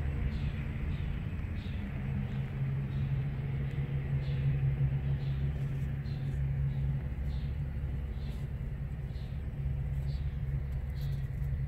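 A steady low engine hum from a running motor. A faint light ticking recurs about twice a second.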